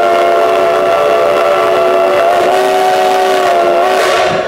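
Train horn sounding one long, held multi-note chord over the rumble of the rolling cars, signalling a road grade crossing; it cuts off just before the end.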